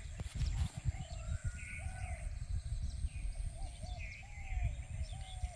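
Birds calling outdoors, repeating short arched notes and higher chirps, over a low rumble. There are a few knocks in the first second.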